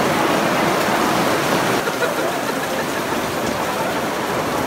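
Heavy thunderstorm downpour: a steady, loud hiss of rain pouring onto the street and rooftops.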